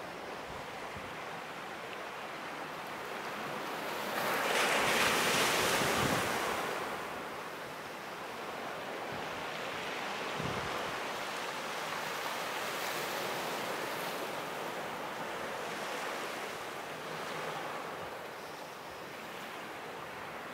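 Sea waves washing ashore, with wind noise on the microphone. The wash swells louder for a few seconds about four seconds in, then settles back to a steady hiss.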